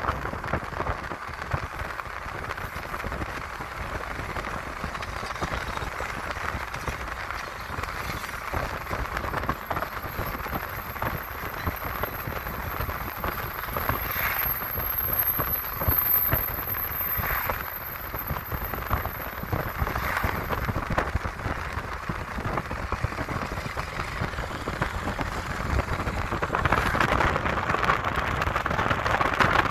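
Steady rushing wind and road noise from a moving car, mixed with the low rumble of a passenger train running alongside, with a faint thin high whine from about a third of the way in to about two-thirds through.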